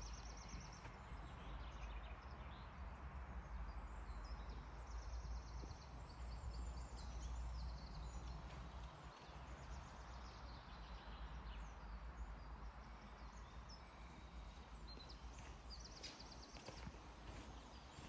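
Woodland birds singing short high trills and chirps now and then, over a steady low rumble and hiss of outdoor ambience.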